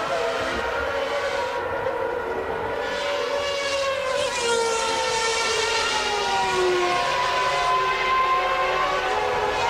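High-pitched note of 1992 Formula One cars' racing engines at high revs, several engine notes overlapping, their pitch sliding down and climbing again as the cars pass and change gear.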